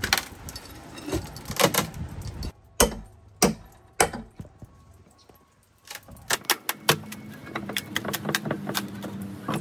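Hammer knocking and prying at screws in a rotted wooden platform: a few sharp metal-on-wood strikes in the first few seconds, a short pause, then a quick run of lighter clinks and taps, with a low steady hum under the last few seconds.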